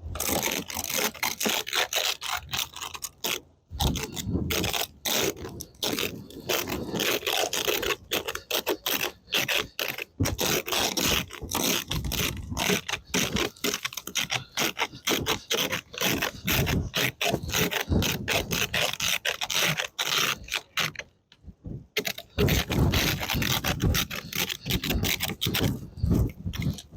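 Rapid, repeated scraping strokes of snow and ice being cleared off a car, with a brief pause near the end.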